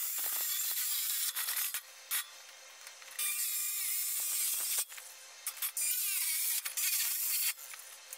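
Compact handheld circular saw cutting through the sheet-aluminum housing of a parking-lot light, a high-pitched whining, rasping cut in about three spells with short pauses between, stopping near the end.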